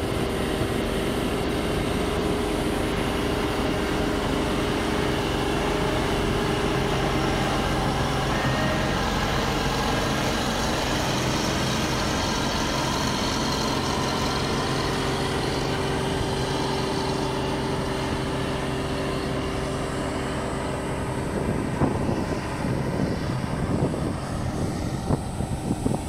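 Old combine harvester's diesel engine running steadily as the machine drives along, with a constant engine hum. Near the end a few irregular sharp knocks and clatters come through.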